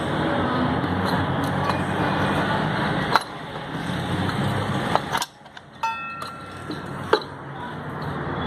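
Hand tools working on metal as a car's starter motor is unbolted: a few sharp clicks and knocks and, about six seconds in, a short metallic ring, over a steady background hum.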